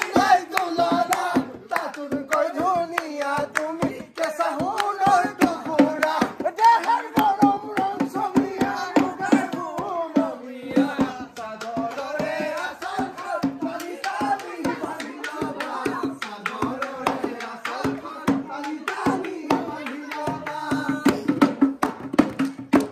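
A group of men singing a Bihu song together, keeping time with rhythmic hand-clapping.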